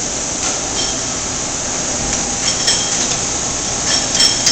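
Steady running noise of a Koyo centerless grinding cell in automatic cycle, with five or six short, ringing metallic clinks of steel camshafts being handled at the load station, two of them close together near the middle and two more near the end.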